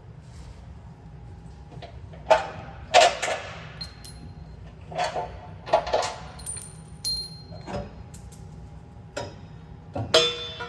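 Metal tools and steel parts clanking and knocking against each other: about eight sharp, irregular clanks with short metallic ringing, the two loudest coming close together early on, over a low steady shop hum.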